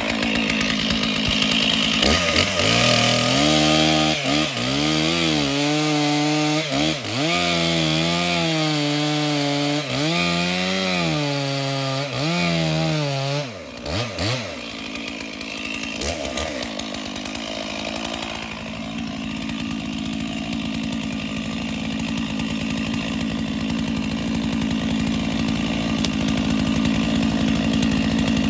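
Chainsaw cutting out an old, partly rotten cedar stump. For the first half the engine revs up and drops back over and over, each rise lasting a second or two. After a brief dip it settles into steady high-speed running from about two-thirds of the way in.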